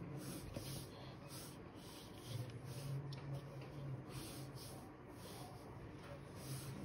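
Black marker pen drawing on folded paper: a series of short, faint scratchy strokes as straight lines are drawn.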